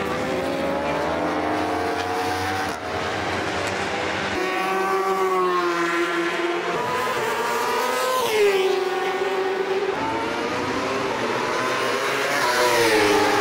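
Racing motorcycle engines at high revs, the pitch climbing and falling as the bikes accelerate through the gears and brake. Bikes sweep past twice, about eight seconds in and near the end. The sound changes abruptly a few times between clips.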